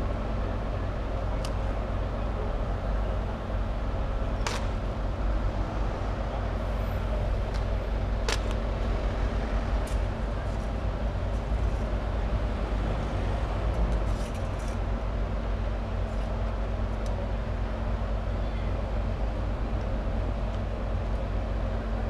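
Diesel engine of a large Liebherr mobile crane running steadily with a low hum, with a few sharp knocks in the first half.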